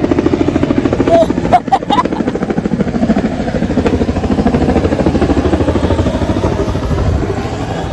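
Helicopter running, its rotor beating in a rapid, steady rhythm and making a lot of noise; a few sharp knocks about one and a half to two seconds in.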